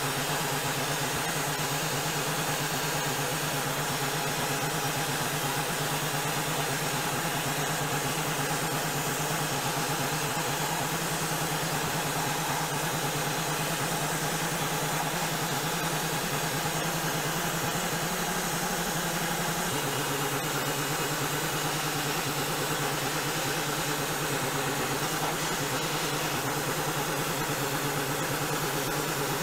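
Abrasive blast cabinet nozzle hissing steadily as grit strips paint and rust from sheet-metal engine parts, with a motor humming underneath.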